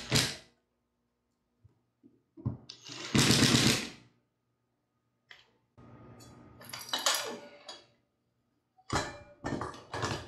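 Cordless drill/driver driving screws in short bursts to fix a ceiling fan mounting bracket to the electrical box, the loudest burst about three seconds in. Near the end come rapid clicks and knocks of the fan's metal housing and glass light globe being handled.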